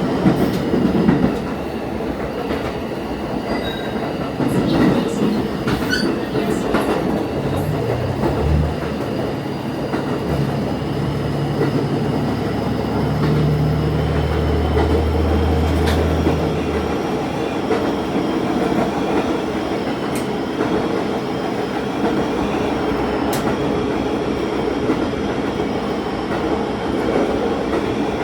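Diesel railcar running along the line, heard from the driver's cab: steady engine drone mixed with wheel-on-rail noise and occasional clicks. A deeper engine note swells for several seconds mid-way, then drops back.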